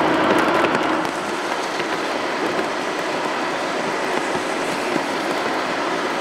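Steady rushing roar of a twin-engine Boeing 777 airliner's jet engines on final approach to land. The noise is a little louder in the first second and settles about a second in.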